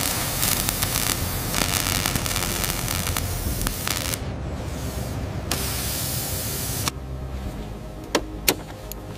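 Robot-arm welding or cutting torch working a metal seam, giving a steady hiss that thins briefly in the middle and stops about seven seconds in. Near the end come two sharp clicks close together, from pliers working on a wiring harness.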